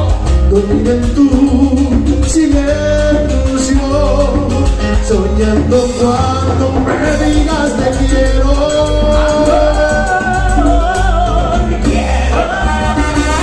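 Live Latin band playing a romantic tune to a steady beat, with congas, timbales, electric bass, keyboard and voices singing. Trumpet and trombone come in near the end.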